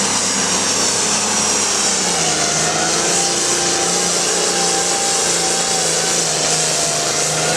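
Hot farm class International pulling tractor's engine running at full throttle under load, pulling the sled. It runs loud and steady, with its pitch sagging slightly about two seconds in as the load builds.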